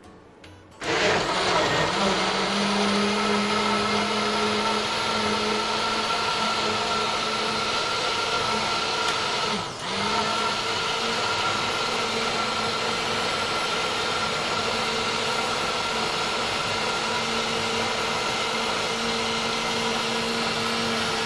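Countertop blender running steadily with a whirring motor hum, puréeing hot cooked pumpkin, pine nuts and soy milk into a thick soup. It starts about a second in, and its hum dips briefly about halfway through before picking back up.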